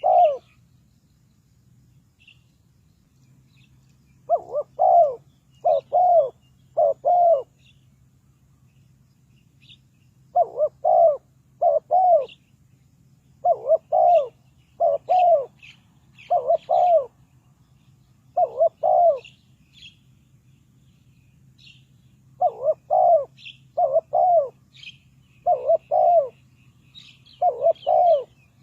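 Spotted dove cooing: phrases of three or four low coo notes, repeated with pauses of a few seconds between phrases. Faint chirps of small birds and a faint low hum lie underneath.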